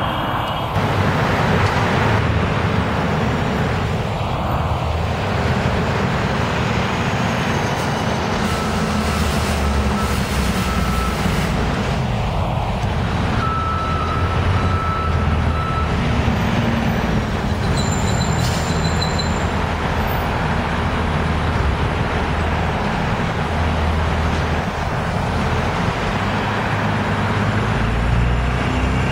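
MTA New York City bus engine running in street traffic, a steady low rumble, with a few thin whistling tones partway through.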